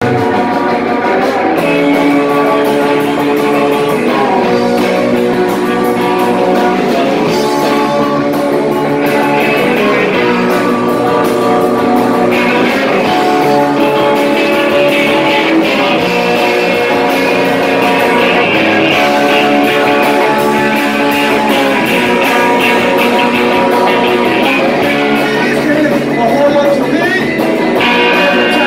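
Live rock band playing: electric guitars over bass and drums, loud and continuous.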